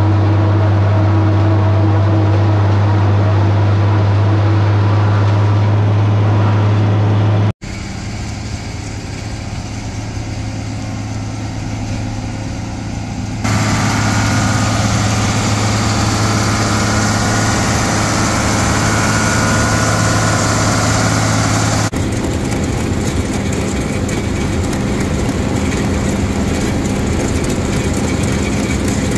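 Tractor engine pulling a New Holland 790 forage harvester through standing corn, a loud, steady low drone that cuts off abruptly about seven and a half seconds in. After that, steady farm machinery runs in the yard, louder from about halfway through: tractors and the silage bagger, with chopped corn silage being fed from a wagon onto the bagger conveyor near the end.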